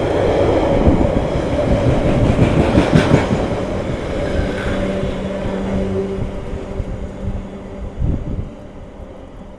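Freight train of waste wagons hauled by a Class 66 diesel locomotive rolling past, a steady rumble with rapid wheel clicks over the rail joints. It fades over the last couple of seconds as the train draws away.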